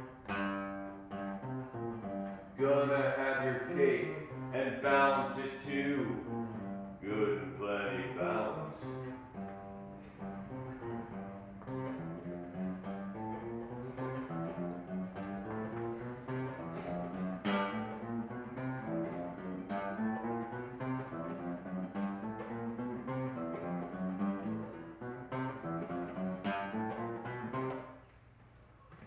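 Guitar played solo in an instrumental passage of changing notes, stopping about a second before the end.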